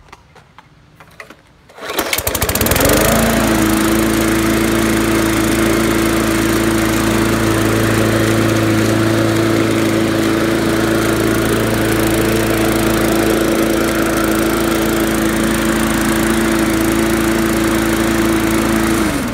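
Briggs & Stratton 300E series 125cc single-cylinder lawn mower engine, primed three times, pull-started: after a quick rattle of cranking about two seconds in, it catches and runs steadily and loudly. It cuts out and winds down just before the end.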